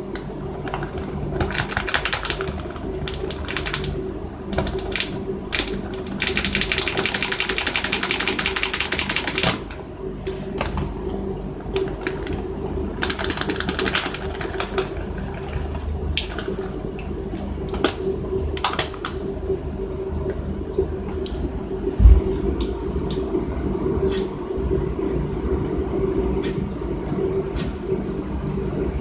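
Powdered spices being shaken and tapped out of their containers into a plastic tub on a kitchen scale: scattered taps and clicks, with a fast rattle of shaking for a few seconds in the middle, over a steady hum. One sharp thump comes about three-quarters of the way through.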